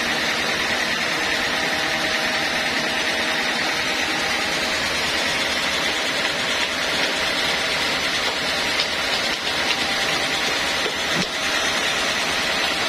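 Vertical band sawmill running steadily, a continuous machine noise of motor and blade that holds an even level throughout.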